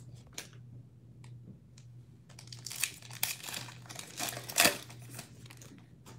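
A Panini Prizm basketball card pack's wrapper being torn open and crinkled by hand: a string of sharp crackles and rustles, loudest about halfway through and again near three-quarters of the way.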